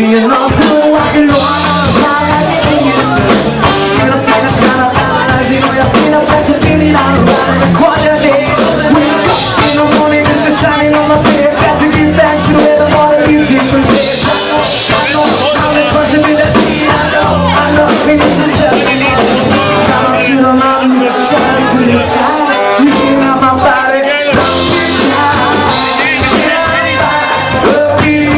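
Ska-punk band playing a song live, loud, with a singer's voice over the band.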